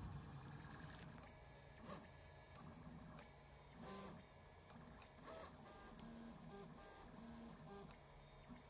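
Prusa-based RepRap 3D printer printing, faint. Its stepper motors give short whining tones that jump in pitch from one print-head move to the next.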